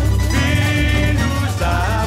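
Samba-style music with a strong, steady bass and a melody line over it.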